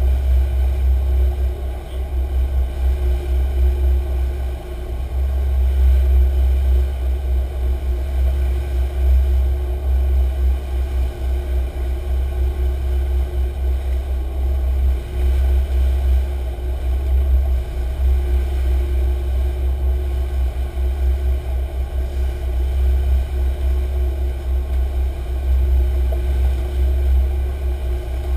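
Sportfishing boat's engines running steadily under way, a constant drone with a low rumble that swells and dips.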